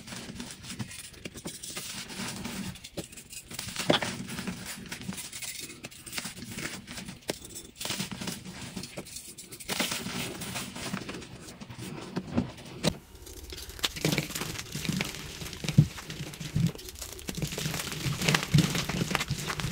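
Dried, pasted gym chalk blocks crushed and crumbled by hand: crisp crunching and crackling with many sharp snaps. The texture of the sound changes about two-thirds of the way through.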